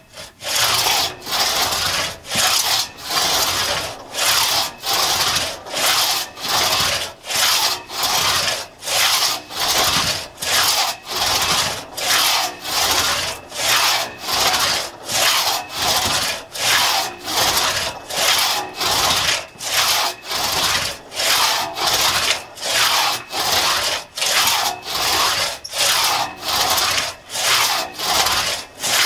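A 4.5-foot Tuttle-tooth one-man crosscut saw cutting through a log in steady, raspy back-and-forth strokes, about one and a half a second, with a short break at each turn of the blade. The blade has just been spritzed with solvent to keep it from binding in the cut.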